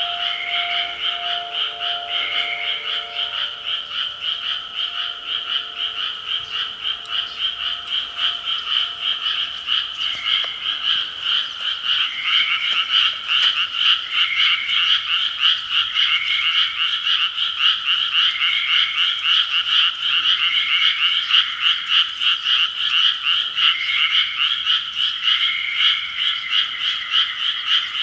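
A dense chorus of many frogs calling together, a continuous fast-pulsing croaking. Short separate calls stand out over it about every two seconds, and the chorus grows a little louder partway through.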